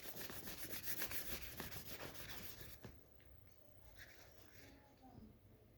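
Colouring on paper: rapid back-and-forth scribbling strokes of a colouring tool filling in an area, stopping abruptly about three seconds in.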